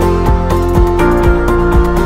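Background music with a steady beat and held tones.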